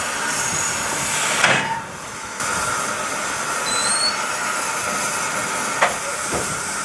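Steam hissing steadily from the cylinder drain cocks of an LMS Class 3F 'Jinty' 0-6-0 tank locomotive. The hiss breaks off for about half a second roughly two seconds in, then comes straight back. A sharp knock sounds just before the break, and a lighter click near the end.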